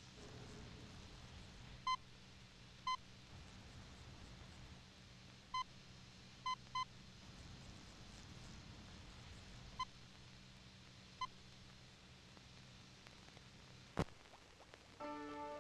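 Computer console beeping: seven short electronic beeps at uneven intervals over a low steady hum. A sharp click comes near the end.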